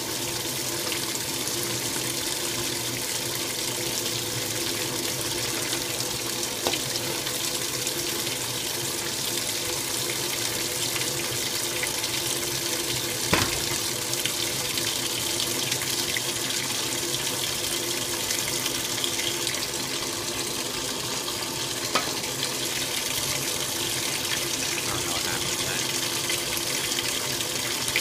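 Old Magic Chef top-load washer agitating: the agitator churns and splashes water in the tub over a steady motor hum. Three sharp clicks or knocks come through, near a quarter, the middle and three quarters of the way in.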